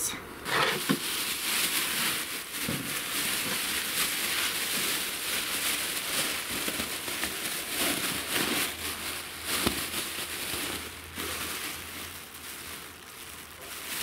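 A thin plastic bag crinkling and rustling as it is twisted shut and handled, with a single knock about ten seconds in; the rustling grows fainter near the end.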